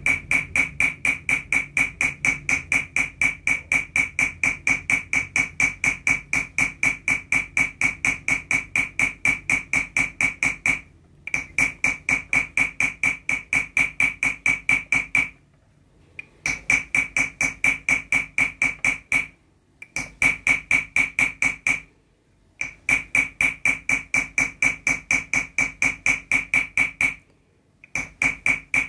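Chasing hammer tapping a steel chasing tool into 0.6 mm copper sheet set in chasing pitch, in quick even strokes of about four to five a second, each blow with a short metallic ring. The tapping stops briefly five times, about a second or less each.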